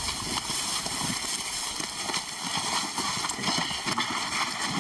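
Several people tramping and shuffling through dry grass while carrying a heavy sedated lion on a tarp: irregular footfalls with rustling of grass and tarp.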